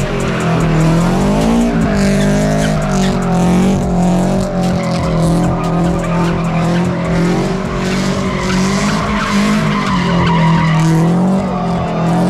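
Car doing donuts: the engine is revved hard and held high, its pitch wavering as the throttle is worked, with a brief dip about a second and a half in, while the tyres squeal and skid on the asphalt.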